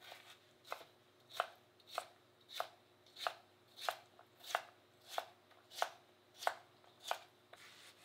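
Kitchen knife chopping cucumber on a cutting board: about a dozen sharp, evenly paced cuts, roughly three every two seconds.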